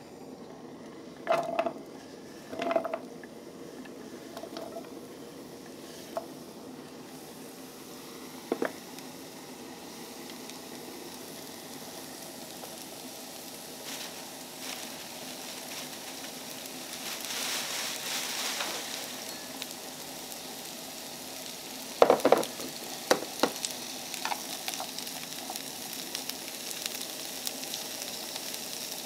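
Sliced carrots frying in oil in a small nonstick frying pan, a steady sizzle that grows stronger partway through. There are a few knocks near the start as the carrots go into the pan, and a burst of chopsticks clacking against the pan later on as they are stirred.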